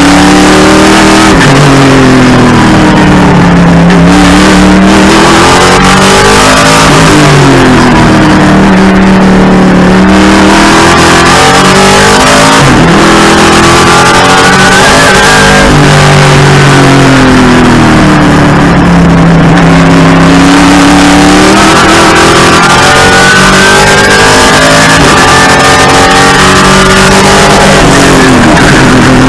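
TA2 race car's V8 engine, heard from inside the cockpit at racing speed. The engine note climbs through the gears and then drops back as the car brakes and downshifts for corners. This rise and fall repeats several times.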